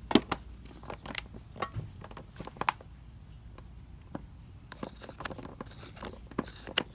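Sporadic small clicks and light metal clinks of a torque wrench and socket being handled on the engine, the sharpest just after the start.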